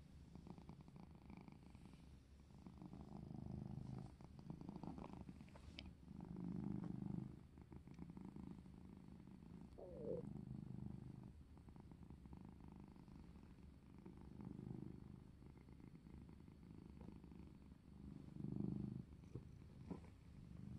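Black-and-white tuxedo cat purring, faint and low, the purr swelling and fading with each breath every three to four seconds. A short wavering higher note sounds near the middle.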